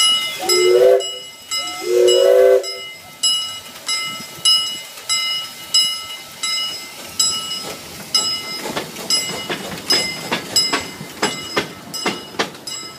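Small live-steam locomotive blowing two short whistle blasts, then its bell ringing steadily about twice a second. Over the last few seconds a quicker run of sharp knocks joins in.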